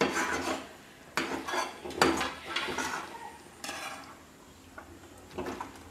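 A steel spoon scraping through thick, sticky jaggery-and-coconut mixture in a steel kadai, in about four short rasping scrapes with metal-on-metal clinks, then two fainter ones near the end. The mixture is cooked to its setting consistency and is being scraped out of the pan.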